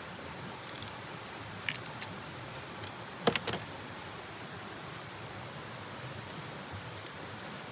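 A few short, sharp clicks and cracks of a large prawn's shell being worked by hand, the loudest cluster about three and a half seconds in, over a steady outdoor hiss.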